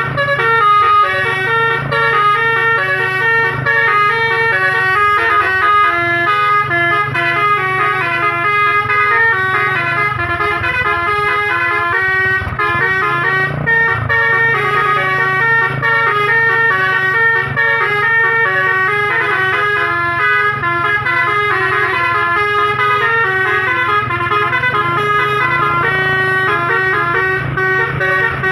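Basuri multi-tone vehicle horn playing a melody, its notes stepping from one held pitch to the next without a break, over a steady low hum.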